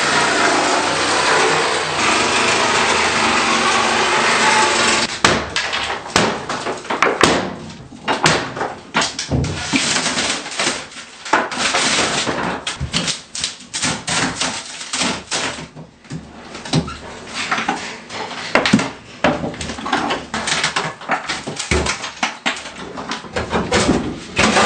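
Demolition of a fiberglass tub shower: a power saw cutting steadily for about five seconds, then a long run of irregular knocks, cracks and bangs as the unit is broken and pulled out.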